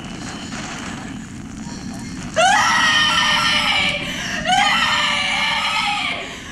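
A woman screaming in terror: two long, loud, high-pitched screams, the first starting about two and a half seconds in and the second a second and a half later, over a low steady rumble.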